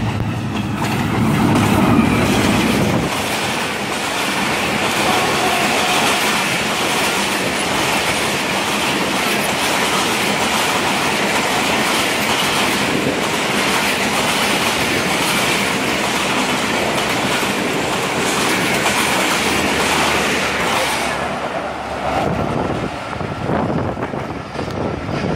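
Express passenger train passing at speed: the GE diesel-electric locomotive goes by with a low rumble in the first few seconds, then the coaches rush past with wheels clattering over the rail joints. The sound tails off about four seconds before the end.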